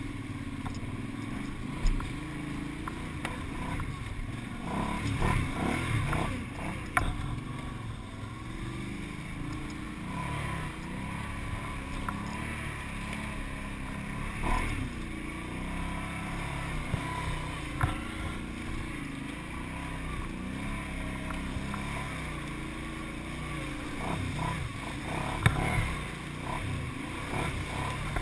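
Quad ATV engine running under changing throttle, its pitch rising and falling as it rides a rough muddy track, with a few sharp knocks as the machine hits bumps.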